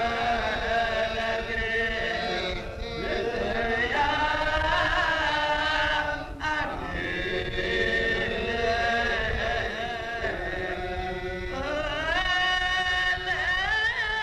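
A voice singing a slow, chant-like melody with long held notes that waver and bend in pitch.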